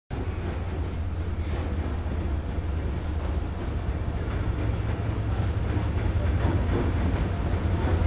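Diesel locomotive approaching, its engine a steady low drone over track rumble that grows slowly louder as it nears.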